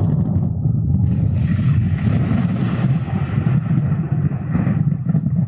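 Recorded thunder sound effect played by a DFPlayer Mini MP3 module through a 12-volt amplifier and a small 5-watt speaker in a plastic tub, close to the microphone: a loud, steady, low rumble.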